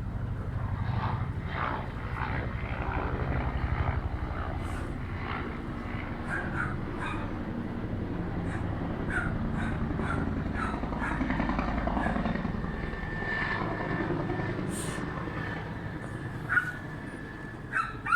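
Helicopter passing overhead: a low, pulsing rotor rumble that fades toward the end, with a dog barking a few times near the end.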